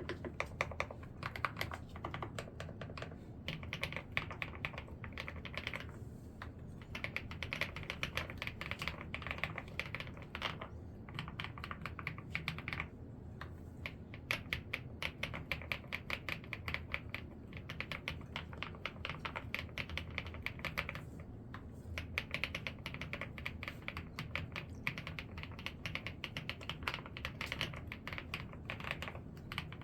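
Continuous fast typing on an ABKO 'pebble' mechanical keyboard with round keycaps: a dense run of clacking keystrokes, broken by short pauses three times.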